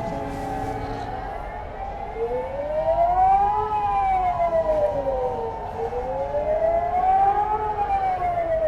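Singapore Public Warning System "Alarm" signal: a civil defence siren wailing, its pitch rising and falling slowly, about four seconds per rise and fall. The wail begins about two seconds in, after a few steady tones. It signals an emergency and calls the public to take shelter immediately.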